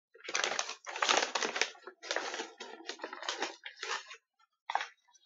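Stiff paper crinkling and rustling in a series of bursts as a large paper bag is handled and scrunched, with a last short crackle near the end.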